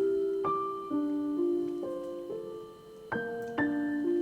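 Background piano music: a slow, gentle melody of single notes and chords, each struck and left to fade, with a brief quieter gap before a louder chord about three seconds in.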